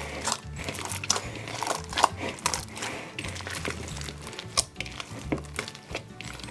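Background music under irregular wet crackling and clicking from slime being handled.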